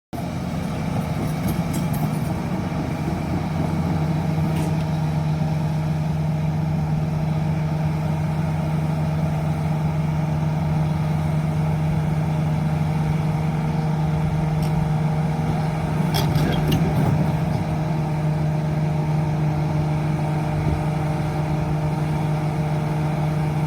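Kobelco SK520 hydraulic excavator's diesel engine running at a steady speed, with a few brief knocks about 1.5, 5 and 16 seconds in.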